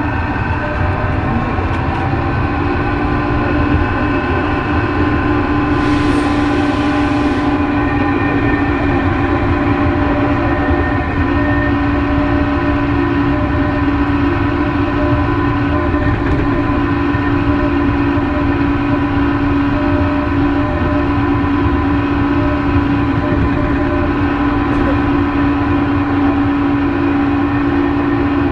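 Tokyo Metro 03 series chopper-control subway car running, heard from inside the motor car: a steady heavy rumble with a steady whine from the drive equipment, rising slightly in pitch in the first second. A short hiss comes about six seconds in.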